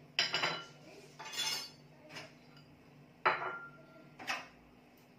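Porcelain bowls from a china set clinking and clattering as they are picked up and set down on a counter: about five separate bursts of clinks, the loudest near the start and just past three seconds in.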